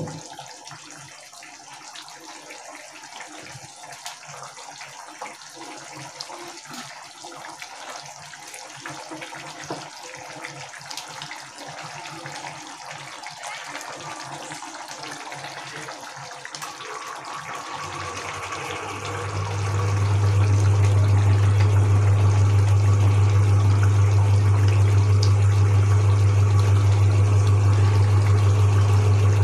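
Chicken in thick masala gravy bubbling at a boil in a pan on a gas burner, with faint crackles. About two-thirds of the way in, a loud steady low hum swells up and drowns out the bubbling.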